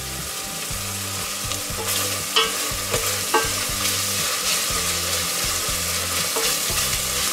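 Diced bacon and onions sizzling in butter in a stainless steel pot, with a few light clicks about two and a half and three and a half seconds in, over a low hum that cuts in and out.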